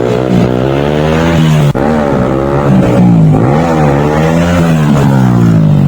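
Motorcycle engine revving repeatedly, its pitch rising and falling about once a second, with a brief break a little under two seconds in.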